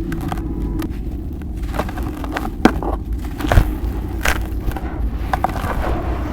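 Chunks of dried cement and sand crumbling and cracking: irregular crackles and snaps, with two sharper cracks a little before halfway. A steady low hum from a faulty microphone runs underneath.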